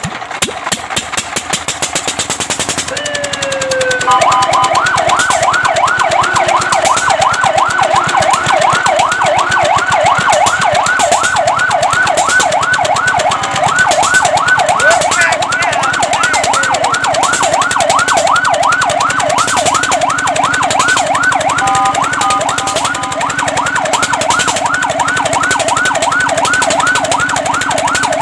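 Fire truck siren winding up after a few seconds of rapid pulsing, then wailing in fast up-and-down sweeps, about three a second (a yelp). It breaks briefly into steady tones about three-quarters of the way through, then goes back to the sweeps.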